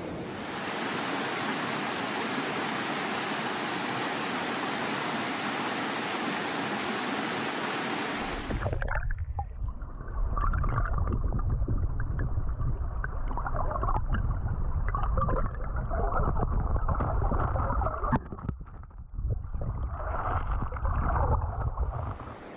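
Rushing water of a small mountain stream, a loud even hiss. About a third of the way in it changes abruptly to the muffled, low rumble and gurgle of the stream heard through a camera held underwater, with the highs gone.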